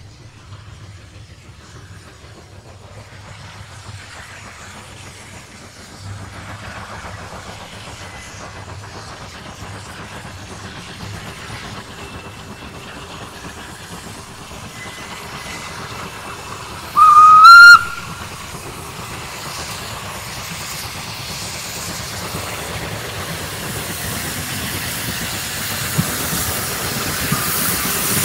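Orenstein & Koppel steam locomotive O&K No. 1 approaching with its train, growing steadily louder. A little past halfway it gives one short, loud whistle that rises slightly in pitch. Near the end a hiss of steam from its open cylinder drain cocks builds as it draws close.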